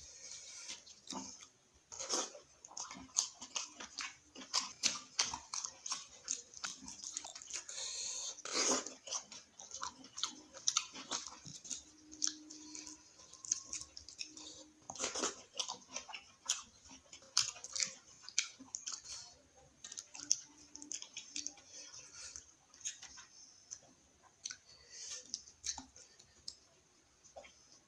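A person chewing a meal of dal, fried onion and egg, with many irregular wet mouth clicks and smacks close to the microphone.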